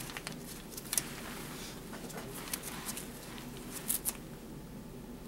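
Gloved hands handling a blood collection tube and its paper label, making a few faint clicks and rustles, the most distinct about a second in and around four seconds in.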